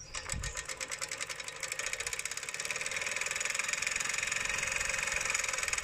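Small hobby steam engine starting up and running, its rapid steam chuffs quickening over the first couple of seconds into a fast steady beat with a steady hiss. It is turning a small DC motor through gears as a generator.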